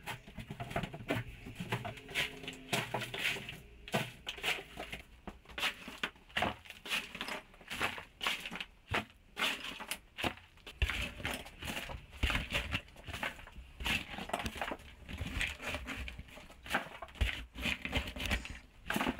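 A snow shovel scraping over the floor through broken drywall debris, with chunks clattering and crunching as they are scooped and dumped into a cardboard box, in an irregular run of scrapes and knocks.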